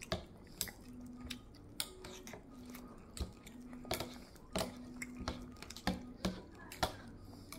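Utensil clicking and tapping against a plastic baby bowl while food is cut up and scooped: irregular sharp clicks, about two a second.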